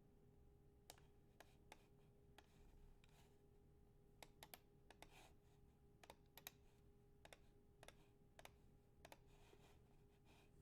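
Faint, irregular clicks at a computer over a faint steady hum.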